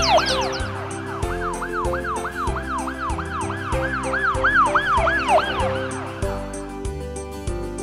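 Cartoon ambulance siren sound effect: a fast, repeating rise-and-fall wail, about three sweeps a second, over background music. The siren stops about six seconds in, leaving only the music.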